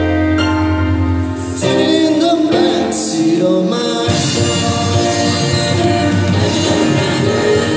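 Live band playing a song, with keyboards, guitar and voices singing. The band's sound grows busier from about four seconds in, with percussion ticking over it.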